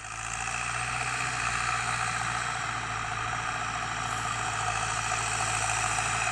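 Harvest machinery running steadily: a low engine hum under a constant whirring hiss, fading in at the start.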